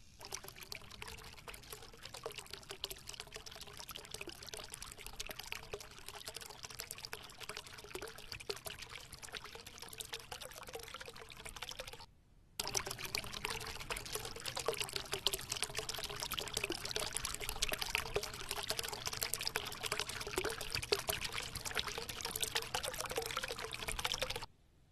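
Running water splashing and trickling over rocks in a hillside stream. It is a steady, dense splash that drops out briefly about halfway through and comes back a little louder.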